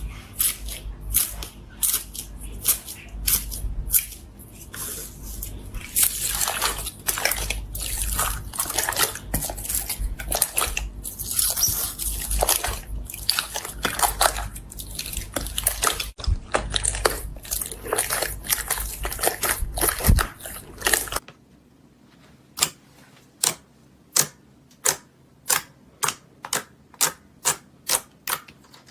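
Slime being squeezed and pressed, with dense crackling, popping and squishing. About two-thirds of the way through it changes to a quieter series of sharp clicks or pops at about two a second.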